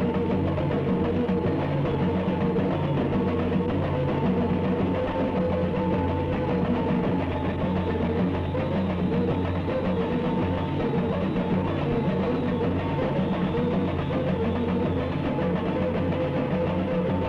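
Music with drums and percussion, playing steadily without a break.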